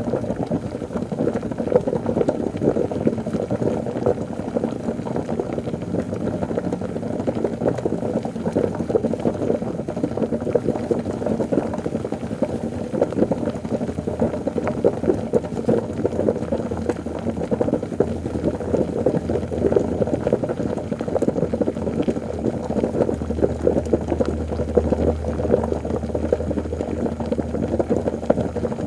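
Liquid bubbling continuously, a light, dense patter of small bubbles that stays even throughout. A low drone joins underneath in the last few seconds.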